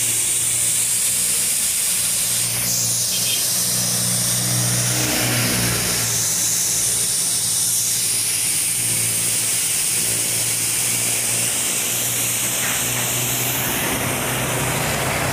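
Steady hiss over the low, steady hum of an idling engine, with road traffic.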